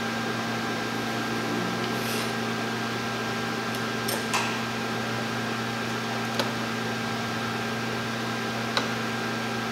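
A steady electrical hum with a few faint, light clicks and taps as a glass microscope slide is taken off the microscope stage and set down on the table.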